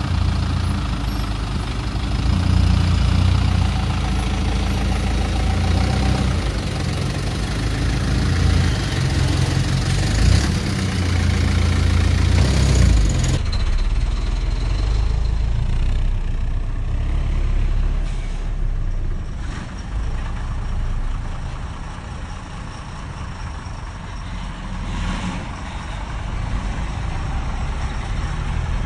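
Bus engines idling with a steady low rumble; the sound changes abruptly about halfway through as a second idling bus takes over.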